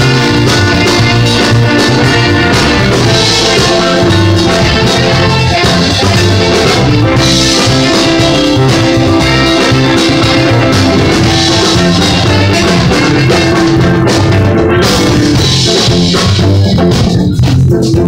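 Live band playing loudly: drum kit and electric guitars, with cymbal washes about every four seconds.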